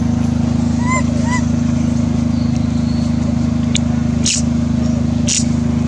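A steady low mechanical drone, like a motor running, with two short rising-and-falling squeaks from a young macaque about a second in and two brief hissy sounds in the second half.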